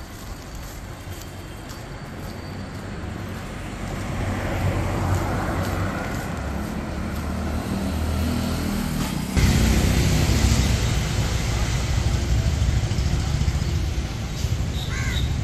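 Street traffic: a car engine is heard approaching and passing on an otherwise quiet road, its hum growing louder. About nine seconds in it switches abruptly to a steady, louder seaside rumble of waves and wind, with a short bird call near the end.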